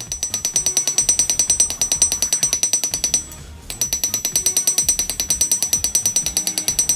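Rapid, even light hammer taps on steel, about eight a second, each with a high metallic ring: a small hammer peening the handle pins of a razor over an anvil, setting the rivets that hold the scales. The tapping stops for half a second about three seconds in, then resumes.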